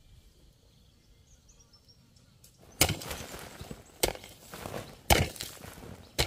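Four sharp blows about a second apart, starting near the middle after a quiet start, with lighter knocking between them, like wood being chopped or struck.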